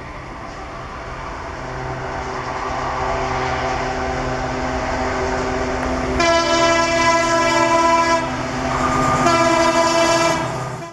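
WDP4 diesel locomotive's EMD two-stroke engine working under load as it approaches with its passenger train, growing steadily louder. Its horn sounds twice: a blast of about two seconds some six seconds in, then a shorter one near the end.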